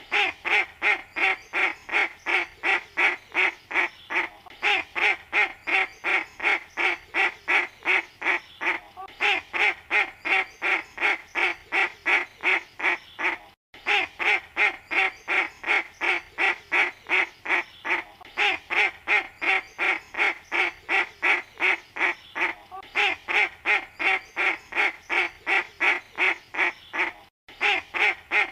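Duck quacking in a fast, steady run of short quacks, about three a second, with a brief break about halfway through.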